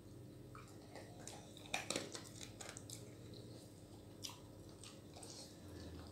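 Dog eating and licking the last food from a bowl, its teeth and tongue knocking the bowl in a quick cluster of clicks about two seconds in, then only a few faint clicks of chewing.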